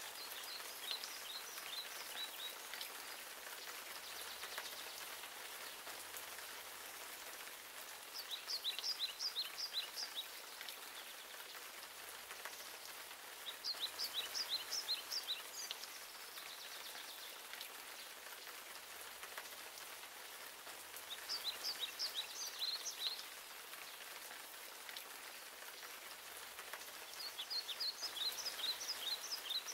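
Steady hiss of rain falling on a lake. A songbird sings short phrases of quick high notes about every six seconds over it.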